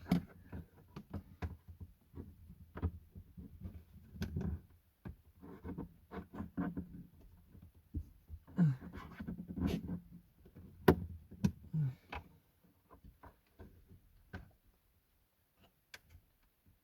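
Irregular knocks, clicks and scrapes of a metal prying tool working at a car dashboard's plastic trim and radio housing, trying to release the radio's retaining clips, which are not giving. The sharpest click comes about eleven seconds in.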